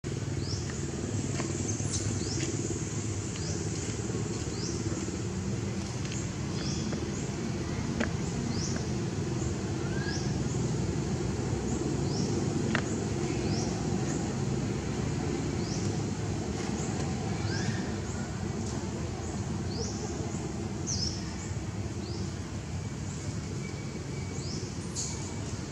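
Outdoor ambience: a steady low rumble, with a bird repeating a short rising chirp about once a second and a couple of sharp clicks.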